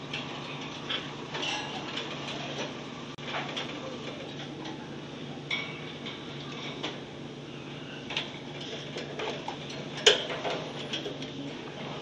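Baby parrots shifting about in shredded bedding in a plastic basket: scattered small clicks, taps and scratchy rustles, with a few brief high squeaks, over a steady low hum. The loudest click comes about ten seconds in.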